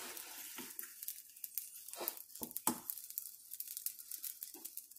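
Metal spoon stirring and scraping a thick mass of cooked semolina in a stainless steel frying pan, a run of soft irregular scrapes and taps, a few louder ones in the middle; the rava is being stirred until it cooks through.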